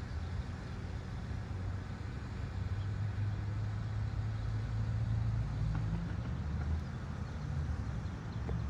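Motor vehicle engine running with a steady low hum, growing louder a few seconds in and easing off about seven seconds in.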